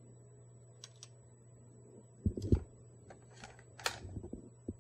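Clicks and clatter of test leads and alligator clips being handled and clipped onto an IGBT module on an aluminium heatsink, with a couple of heavier knocks a little over two seconds in.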